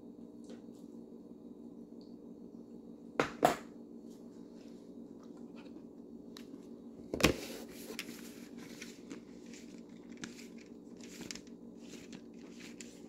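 Handling knocks and clicks: two quick knocks about three seconds in, a louder knock about seven seconds in, then light scattered clicking, over a steady low hum.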